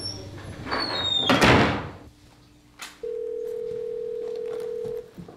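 A loud rush of noise that swells and dies away within the first two seconds, then a steady telephone dial tone held for about two seconds.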